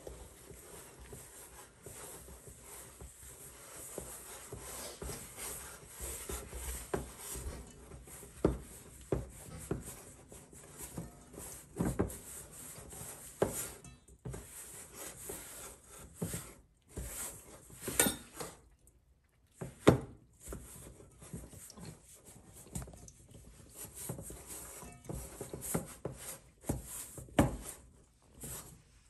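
Wooden spatula stirring a shaggy rye bread dough in a metal bowl: steady scraping and rubbing, broken by irregular sharp knocks of the wood against the bowl.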